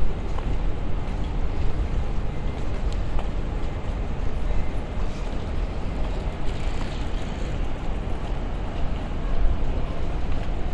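City street ambience: a steady low rumble of traffic and urban background noise, with a few faint ticks.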